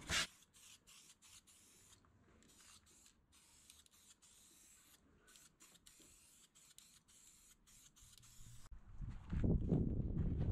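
Faint scuffing of a Scotch-Brite pad rubbed over a plastic headlight housing to key its surface for paint. About nine seconds in, a much louder low rumbling noise comes in.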